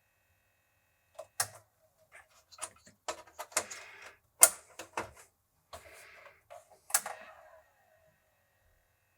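A run of irregular clicks, knocks and short scrapes from computer hardware being handled by hand, the sharpest knock about four and a half seconds in.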